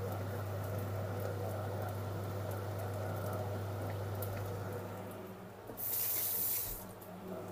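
Kitchen tap running for about a second near the end, over the steady low hum of a running kitchen appliance.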